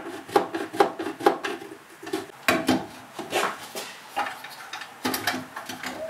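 Irregular clicks and knocks, about two a second, from the bandsaw's upper blade guide being worked by hand. The guide will not go up far enough, because the saw's throat is too small for the cut.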